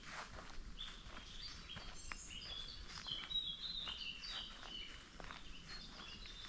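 Small songbirds singing in quick runs of short high chirps and whistles, with soft footsteps on a forest path underneath.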